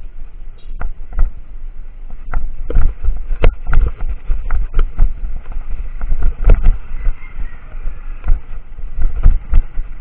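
Wind rumbling on a bike-mounted camera's microphone while the bicycle rolls over a rough concrete road, with irregular knocks and rattles from the bike and the mount jolting over bumps.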